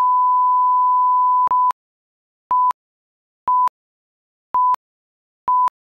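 Steady test tone played over colour bars, cutting off after about a second and a half. Then four short beeps about a second apart, the countdown-leader beeps ticking off the numbers.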